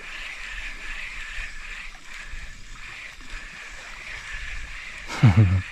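Shallow sea water moving over a rocky shore, a steady wash with a constant high hum running through it. Near the end there is a short, loud, falling voice sound.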